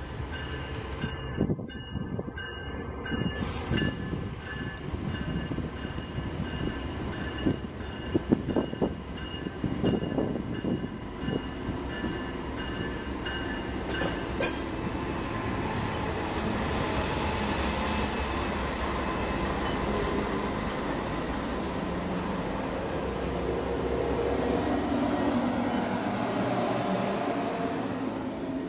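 Railroad crossing bell ringing over the rumble of approaching diesel freight locomotives for the first half. After a cut, the locomotives and freight cars roll slowly past close by: steady diesel engine rumble, wheel and rail noise, and some wheel squeal.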